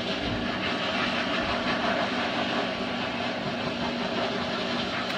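Steady whooshing hiss of a pet dryer blowing air, with a low motor hum underneath.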